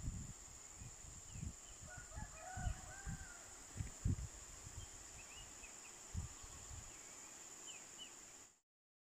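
A rooster crows faintly once, about two seconds in, with a few small bird chirps, over a steady high-pitched insect drone. Irregular low thumps on the microphone are the loudest sounds. The sound cuts off suddenly near the end.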